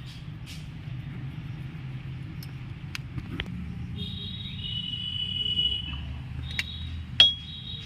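Low steady rumble with a high, steady insect chirping that starts about halfway through. A few sharp metallic clicks come from work on the drum brake's shoes and springs, the loudest just after seven seconds.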